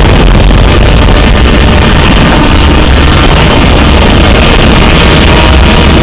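Deliberately overdriven, clipped 'earrape' audio: bass-boosted music buried under a wall of harsh distorted noise, steady and at full loudness.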